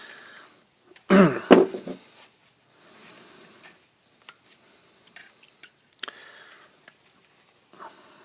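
Small clicks and faint scraping of a metal tool prying at the plastic housing of a Reloc electrical connector, trying to pop it off the steel contact. A short grunt-like vocal sound about a second in.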